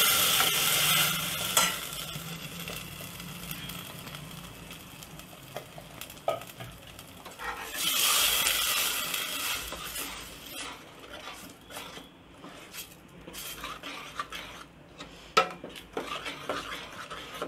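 Ground masala paste sizzling as it is poured into hot oil and sautéed onions in a stainless steel pot, the sizzle fading after a couple of seconds and swelling again about eight seconds in as it is stirred. A steel ladle stirs and scrapes the paste, with sharp clinks against the pot near the end.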